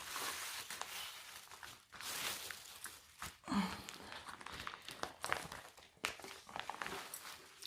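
Soft rustling and scattered small clicks of paper craft cards and their plastic pocket sleeves being handled and slid in and out.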